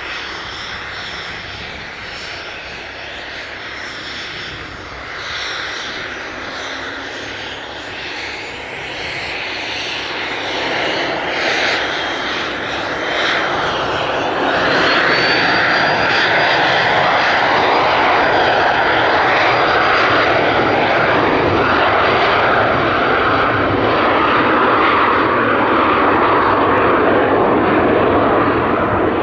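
Cessna Citation Mustang's twin turbofan engines at takeoff power as the jet rolls down the runway. The jet noise grows markedly louder about halfway through, and a high whine rises in pitch over a few seconds, then holds steady.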